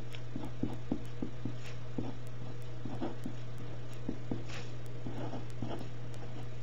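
Pentel pen writing on paper: light, irregular taps and scratches of the pen tip as letters are formed, over a steady low hum.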